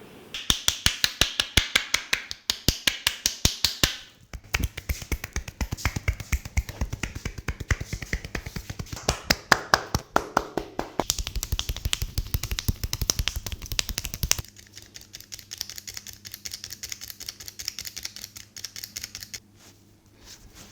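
Hands rapidly tapping and slapping a body in a percussive massage, a fast even rhythm of about six strikes a second. The strikes are crisp and sharp at first, become heavier and deeper from about four seconds in, turn lighter and quieter after about fourteen seconds, and stop near the end.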